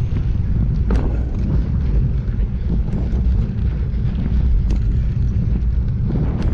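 Heavy wind buffeting on a handlebar-mounted GoPro's microphone while riding: a steady low rumble with a few sharp clicks or knocks, about a second in and again near the end.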